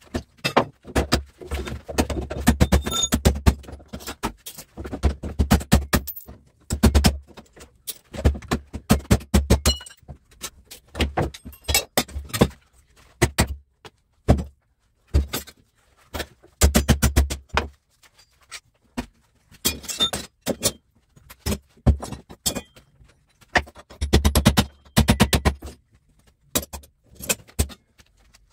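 Repeated hammer blows on a small electric motor's aluminium end housing, clamped in a steel bench vise: rapid bursts of sharp metallic clanks with short pauses between, as the aluminium around the bolts is cracked away to get the screws out.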